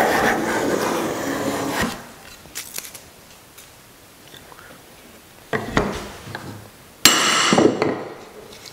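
A finely set wooden rabbet plane taking a shaving along a rabbet in a pine board, one stroke of about two seconds. A knock follows about five and a half seconds in as the plane is set down on the wooden bench. About a second of hand brushing sweeps shavings off the board near the end.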